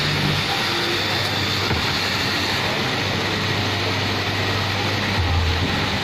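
Straight-knife cloth cutting machine running steadily, its reciprocating blade cutting through a stack of denim layers, with a constant low hum that swells briefly about five seconds in.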